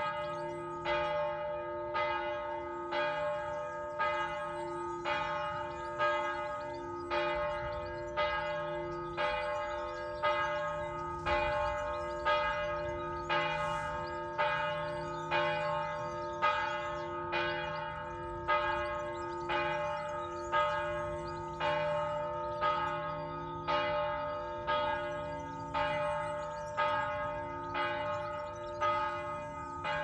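Monastery church bell tolling steadily, about one strike a second, each stroke ringing on into the next.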